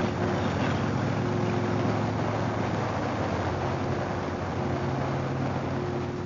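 Harley-Davidson Fat Boy's V-twin engine running steadily at cruising speed, with wind rushing past the rider.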